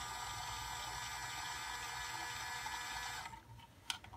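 Small electric motor of a Gemmy animated snowman candy bowl whirring steadily as the figure spins, with no music because its speaker is broken. The whir cuts off about three seconds in as the snowman stops, followed by a faint click.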